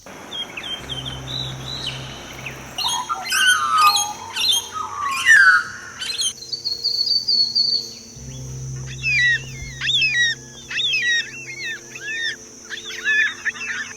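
Several songbirds chirping and singing. A dense burst of varied calls comes a few seconds in, followed by a short high trill, then a long series of quick, sharply falling chirps. A steady high-pitched hum runs underneath throughout.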